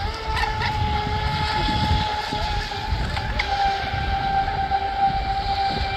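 Two Pro Boat Sonicwake radio-controlled boats running at speed, the high whine of their brushless electric motors holding a steady pitch with small dips, over a low rumble.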